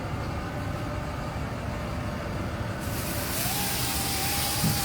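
Tree crew's engine-driven equipment running with a steady low rumble. About three seconds in a rushing hiss comes up, and a higher whine rises and then holds steady.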